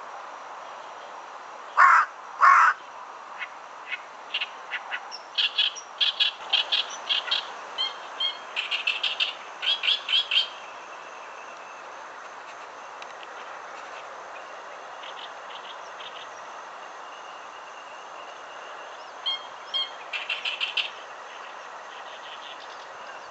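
Oriental reed warbler singing its harsh, chattering song of rapid repeated notes. It starts with two loud rasping notes about two seconds in, runs in a long burst for several seconds, falls quiet, and sings one shorter burst near the end.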